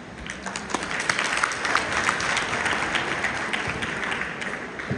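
Audience applauding: dense clapping that starts just after the closing word and thins out near the end.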